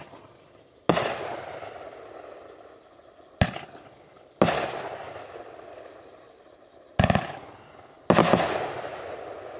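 Consumer fireworks cake firing shots: three loud aerial breaks, each trailing off in a fading tail. The second and third breaks each come about a second after the sharp thump of the tube launching the shell.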